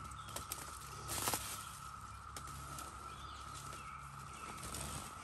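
Paracord being handled and pulled around saplings while tying a trucker's hitch, with soft rustling of cord, stems and fern fronds. There is one louder rustle about a second in, and a steady high-pitched tone in the background throughout.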